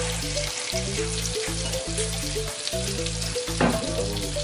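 Salmon fillets sizzling in butter in a frying pan, a steady hiss of frying fat, with background music playing underneath.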